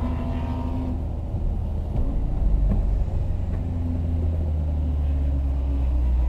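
Car engine running at low revs near idle in second gear while the car rolls slowly, a steady low rumble with revs easing off toward idle.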